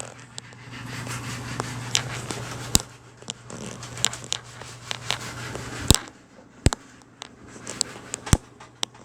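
Several sharp clicks and knocks over a steady low hum in a small room.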